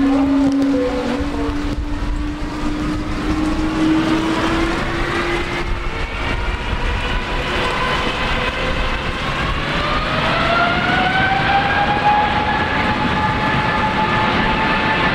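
Boeing 777-200's Pratt & Whitney PW4000 turbofans spooling up to takeoff thrust. A steady engine whine begins to climb in pitch about four seconds in and levels off at a higher steady whine near the end, over a continuous deep rumble.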